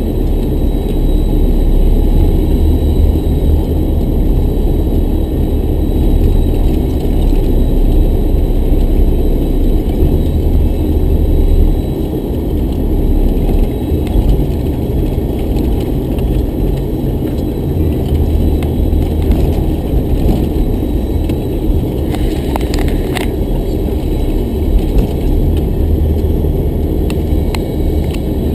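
Cabin noise inside a moving Toyota Land Cruiser: a steady, loud, low engine and road rumble while driving, with a few sharp clicks or rattles about three-quarters of the way through.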